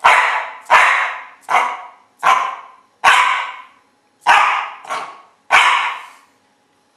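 Coton de Tuléar barking repeatedly, eight sharp barks spaced roughly a second apart with a pause before the last, each dying away in a short echo. The dog is counting out its answer to a sum held up on a card, one bark per unit.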